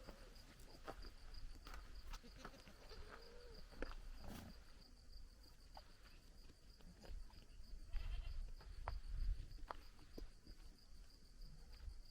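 Outdoor walking sounds with wind on the microphone, which rumbles loudest about eight to nine seconds in. A farm animal calls briefly about three seconds in.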